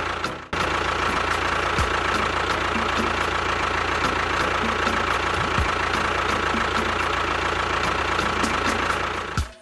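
A small motor of a DIY mini bulldozer running steadily, cutting out briefly about half a second in and stopping near the end.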